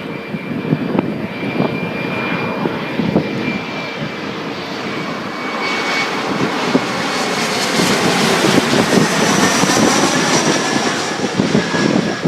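Jet airliner passing close by, its engine rush growing steadily louder with a thin whine that slowly drops in pitch as it goes past.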